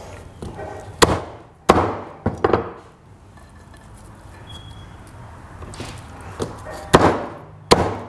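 Meat cleaver chopping through roasted chicken leg quarters on a thick wooden chopping block: three sharp chops one to two and a half seconds in, then two more near the end.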